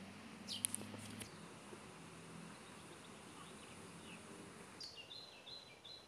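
Small songbirds chirping in trees: a few sharp, high calls about half a second in, then a short run of quick chirps near the end. A faint low hum underneath stops about a second in.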